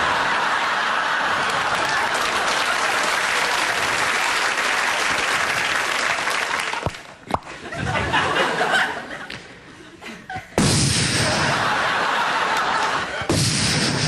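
Studio audience laughing loudly, with some applause: a long stretch of laughter, a lull, then a second loud burst about ten seconds in.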